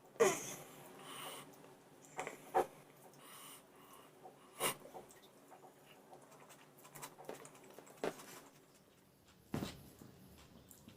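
Close-miked mouth sounds of eating: scattered wet smacks and clicks while chewing rice and chicken curry. There are about half a dozen short ones, the loudest right at the start.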